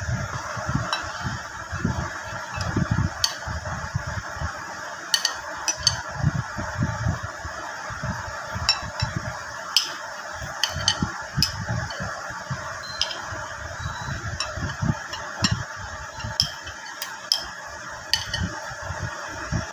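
A metal spoon scraping and clinking against glass bowls as chopped onion and tomato are tipped out, with irregular sharp clinks and soft bumps of the bowls being handled, over steady background noise.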